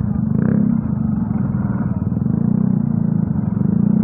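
Motorcycle engine running steadily at low speed in slow traffic, a low even drone that sounds muffled and dull through an earphone microphone.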